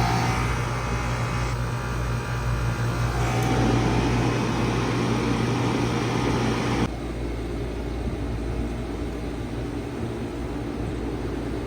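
1995 Bard 5-ton wall-hung heat pump running in cool mode: a steady compressor hum under fan whoosh. About seven seconds in, the higher whoosh cuts off abruptly and the level drops, leaving the low hum.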